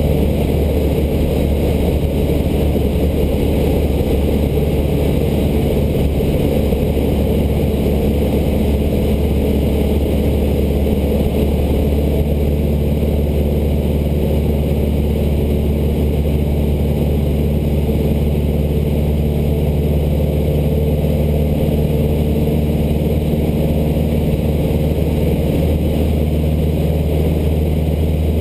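The engine and propeller of a Cessna 152, a four-cylinder Lycoming O-235, droning steadily in flight, heard from inside the cabin.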